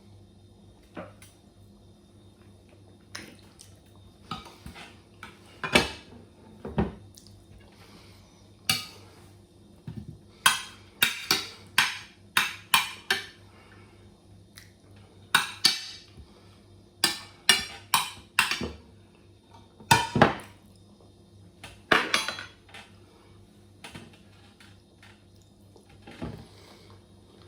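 Cutlery clinking and scraping against a plate while eating: a string of short, sharp knocks, bunched into quick runs in the middle stretch.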